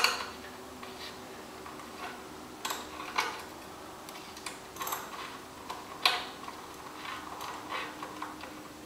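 Scattered, irregular metallic clicks of a wrench and socket turning a new spark plug down its threads into the cylinder head of a Rotax 377 two-stroke engine, before the plug is snugged.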